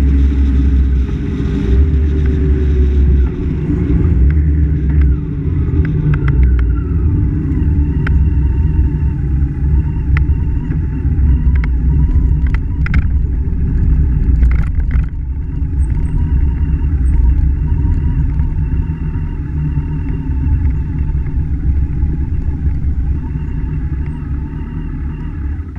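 A vehicle's engine running with heavy wind rumble on the microphone, its pitch falling in the first couple of seconds as it slows. It then runs on steadily at low speed while the tyres crunch and click over gravel.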